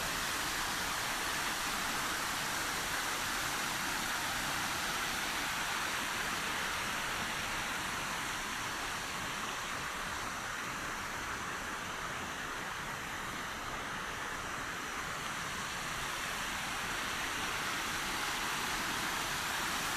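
Waterfall: a steady rush of falling water, easing slightly for a few seconds midway.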